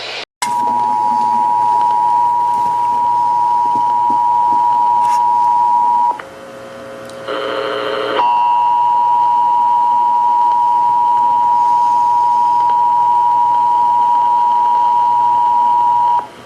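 Emergency Alert System two-tone attention signal (853 and 960 Hz together), a loud steady tone. It sounds for about six seconds, breaks off for about two seconds with a short buzzy tone near the end of the gap, then resumes for about eight more seconds before cutting off.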